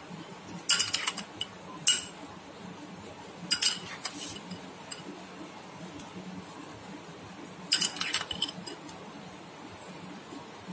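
A metal spoon clinking against a glass bowl and a steel plate while chopped onion is spooned onto bread, in short bursts of clinks about one, two and four seconds in and again near eight seconds.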